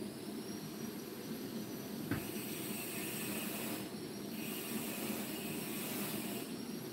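Steady background hiss with faint, thin high-pitched whine tones, heard through an online call's audio. A single click comes about two seconds in, and the hiss grows brighter from there until shortly before the end.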